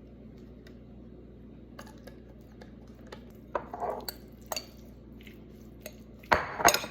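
Kitchen clatter of dishes and utensils: scattered light clicks and taps, then two loud knocks near the end.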